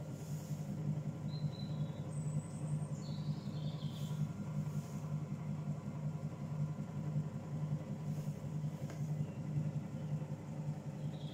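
Electric potter's wheel running, its motor giving a steady low hum that pulses evenly, as it spins a leather-hard bowl for trimming.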